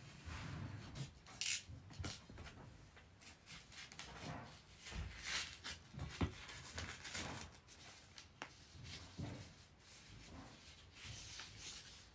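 Shoji rice paper rustling and crinkling as a trimmed offcut strip is pulled away from the panel and handled, with scattered small scrapes and taps of hands and a tool on the paper.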